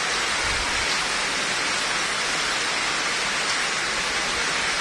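Heavy monsoon rain pouring down steadily, a dense even hiss of downpour.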